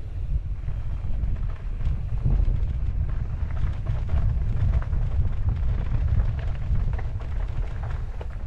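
Wind rumbling on the microphone during a mountain-bike descent, with a steady stream of clicks and rattles from the bike and tyres running over rough dirt trail.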